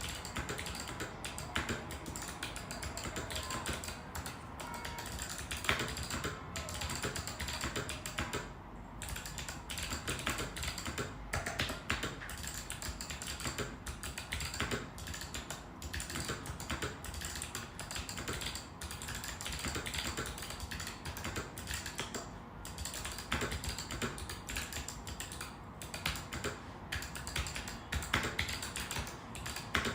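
Typing on a mechanical keyboard fitted with Kailh × Chosfox Arctic Fox switches: a fast, continuous run of key clacks, with brief pauses about nine seconds in and again around twenty-two seconds.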